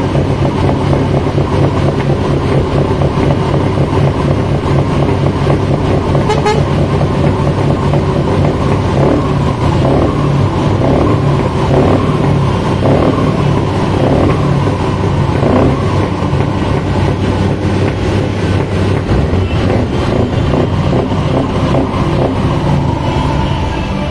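Scania V8 diesel truck engines idling steadily and loudly, with an even pitch and no revving.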